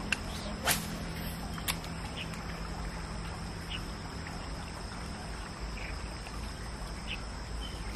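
Quiet outdoor ambience: a few sharp clicks in the first two seconds over a low steady hum that fades out, then scattered short, faint chirps.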